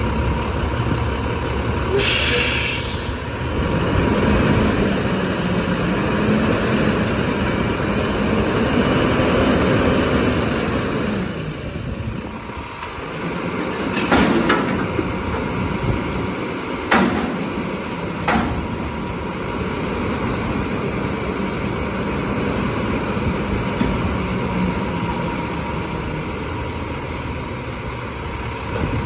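Autocar WXLL front-load garbage truck's diesel engine revving to power the hydraulics as the arms lift a dumpster over the cab, with a short hiss of air about two seconds in. Sharp bangs around the middle as the dumpster is knocked at the top to empty it into the hopper, then the engine runs steadier as the arms lower the container.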